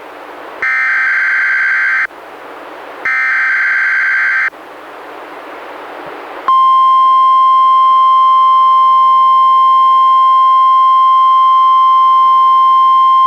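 NOAA Weather Radio required weekly test coming through a weather radio: two warbling bursts of SAME digital header data, each about a second and a half long with radio hiss between them, then about six and a half seconds in the steady 1050 Hz NWR warning alarm tone starts and holds.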